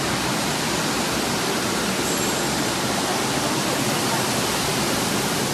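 Steady rushing noise of a banana-processing line's machinery running, even and unbroken, with no distinct beats or tones.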